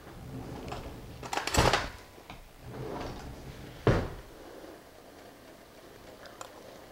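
A kitchen drawer slid open with a short rattle, then knocked shut about two seconds later.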